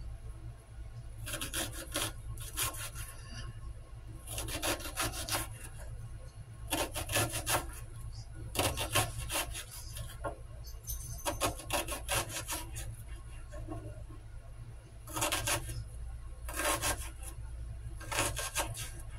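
Kitchen knife cutting vegetables on a cutting board: about nine runs of quick strokes, each under a second or so, with short pauses between.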